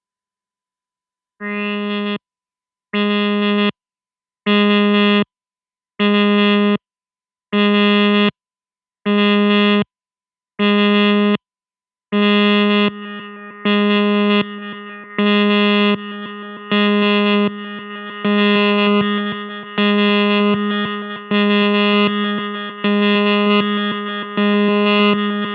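Korg MS-20 analog synthesizer sounding the same low note over and over, about every second and a half. The first notes stop cleanly with silence between them; about halfway through, a lingering tail fills the gaps so the notes run into each other.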